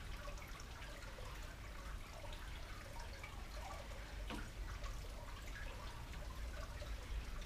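Steady trickling and dripping water under a low hum, with one sharp click about four seconds in.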